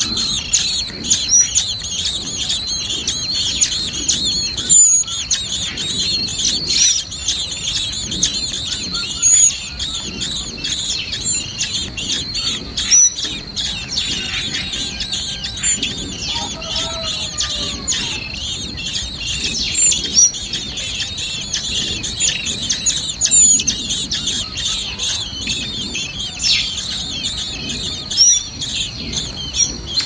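Common blackbird nestlings begging in the nest: several chicks giving a dense, continuous high-pitched cheeping.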